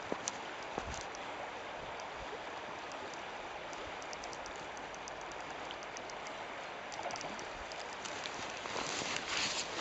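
Shallow river water running over stones in a steady rush, with a few small clicks, growing louder near the end.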